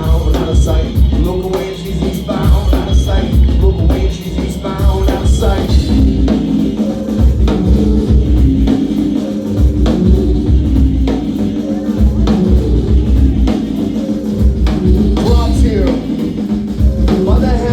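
Live band playing an instrumental passage, led by a drum kit with a steady beat over a heavy, low bass line.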